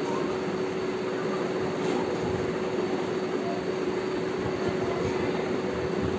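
Steady mechanical hum: a constant tone over an even rushing noise, unchanging throughout.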